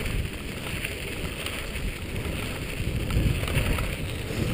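Wind rushing over the microphone of a dog scooter's handlebar camera, mixed with the scooter's tyres rolling over a gravel trail as two huskies pull it along.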